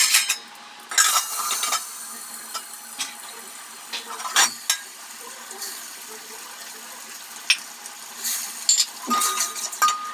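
Garlic and spice paste frying in hot desi ghee in a steel pot: a steady sizzle, with a ladle clinking and scraping against the pot as it is stirred, loudest about a second in and again near the end.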